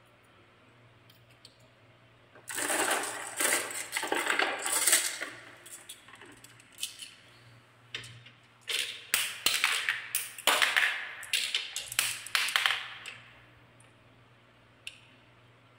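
Marbles rolling and clattering down a wooden marble run, in irregular bursts of rapid clicks and rattling starting about two and a half seconds in, with a quieter spell in the middle and a few lone clicks.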